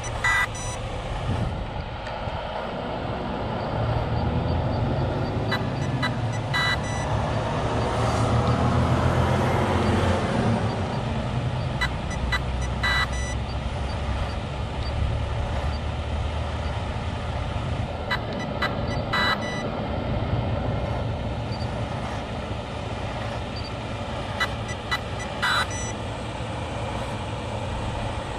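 Steady low rumble of an idling truck engine, swelling a little between about four and ten seconds in. Short electronic beeps sound about every six seconds over it.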